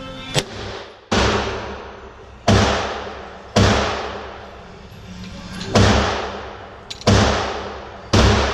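Six gunshots fired at irregular intervals, each a sharp report followed by a long echoing decay, with a faint click just before the first.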